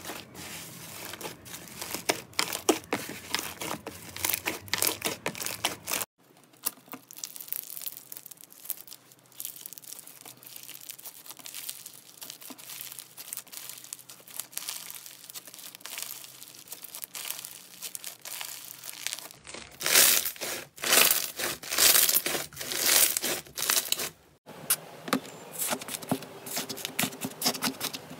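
Hands squishing, stretching and poking slime in a run of short clips: a dense wet crackle and popping from kneading fluffy slime, then a quieter fine crackle as a crunchy bead-textured slime is stretched, and a stretch of loud, sharp crackles about two-thirds of the way through.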